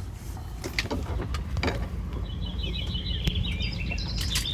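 A small songbird twittering a rapid run of high chirps, starting a little before halfway and lasting about two seconds, over a steady low outdoor rumble, with a few short clicks or scuffs in the first half.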